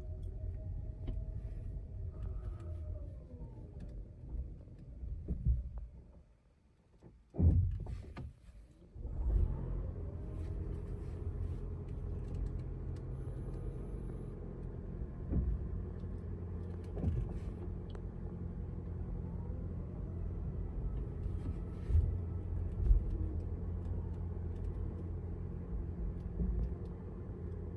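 Low rumble of a 2024 Toyota RAV4 rolling at low speed, with a few gliding pitched tones at the start. About six seconds in it goes almost silent as the car stops, then a sudden loud noise follows as it moves off again. The owner records this as the brakes' noise when stopping and when the pedal is released, which he takes for a fault in the braking system.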